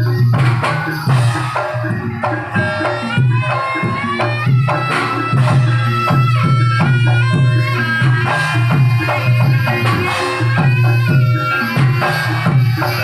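Live jaranan ensemble music: drums keep a steady, driving beat under a pitched melody line that bends between notes.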